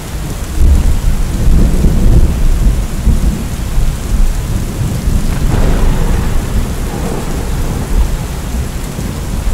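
Rain and thunder: a steady hiss of rain over a deep, heavy rumble.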